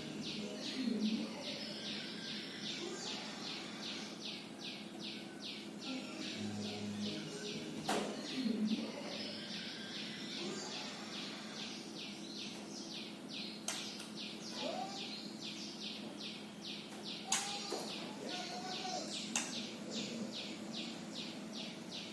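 White-rumped shama giving a long, steady run of short high chirps, about five a second, as a young bird practising its song. A few sharp clicks and short lower whistles come in over a faint low hum.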